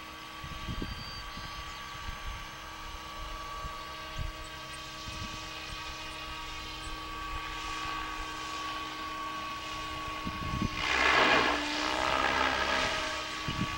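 Protos Max V2 electric RC helicopter flying: a steady motor and gear whine over rotor blade noise, swelling loudest about eleven seconds in as it passes closer.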